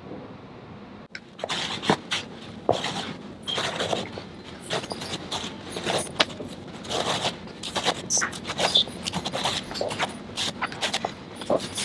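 Quick, irregular scraping strokes of a wire-pinned brush dragged through the pile of a tufted yarn rug, brushing out loose fibres. The strokes begin about a second in and come several times a second.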